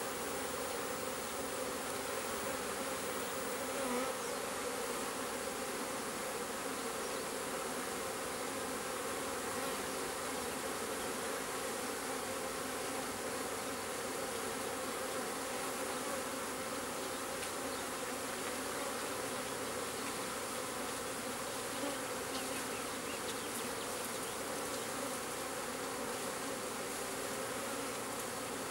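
A honeybee swarm buzzing steadily, many bees in the air and on the box as the swarm moves into a swarm trap.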